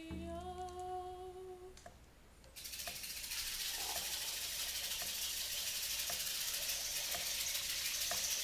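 A hummed note that rises slightly in pitch for about two seconds. Then, from about two and a half seconds in, a steady rushing hiss of running water, like a stream.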